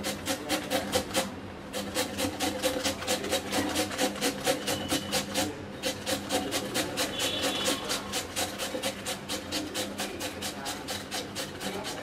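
A raw potato rubbed back and forth across a plastic hand grater, each stroke a short rasp in a quick, even rhythm of several strokes a second, with two brief pauses.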